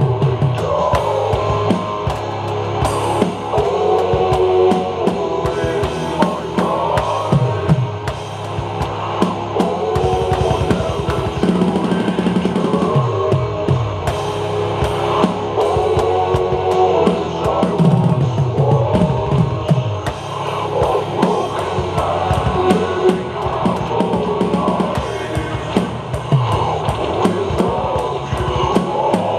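Tama drum kit played along to a recorded rock song, drum and cymbal hits over sustained, heavy instrumental layers.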